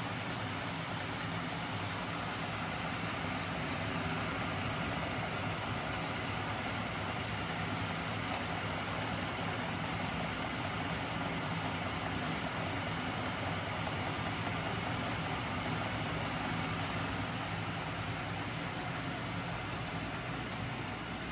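Homemade magnet-driven crankshaft machine running under its small DC electric motor: a continuous mechanical hum with steady low tones under a whirring hiss.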